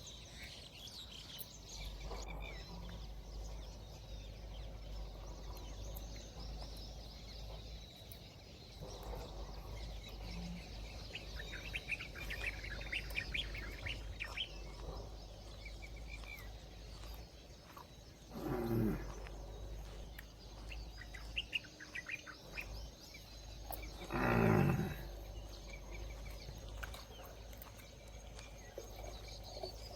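Birds chirping and calling, with two low calls that fall in pitch, a short one past the middle and a longer one later, over a steady low background noise.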